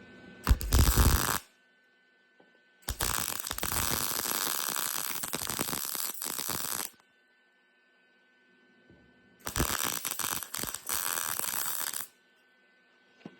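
Lincoln welder's arc crackling on sheet steel in three bursts: a short tack of about a second, a longer run of about four seconds, then a run of about two and a half seconds with brief breaks, each starting and stopping abruptly.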